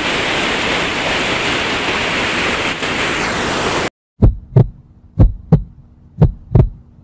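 Loud, steady rush of white water at a small waterfall's plunge pool. About four seconds in it cuts off suddenly, and a heartbeat sound effect follows: low lub-dub thumps in pairs about once a second over a faint hum.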